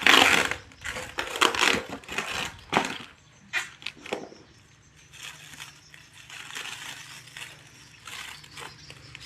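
Packaging being handled and opened: loud crinkling and rustling for the first few seconds, then quieter scattered rustles.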